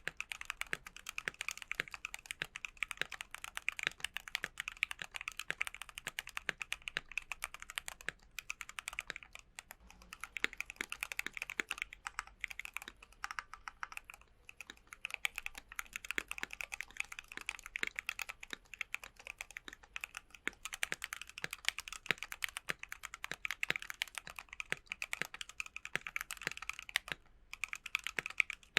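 Keychron Q1 aluminium mechanical keyboard with Gateron Phantom Red linear switches and PBT keycaps being typed on steadily in fast, continuous keystrokes. The typing thins out briefly about nine seconds in, then picks up again.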